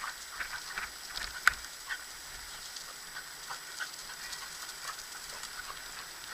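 Light pattering and clicking of a team of four dogs running in harness, pulling a kickbike scooter along a trail, with one sharper click about a second and a half in.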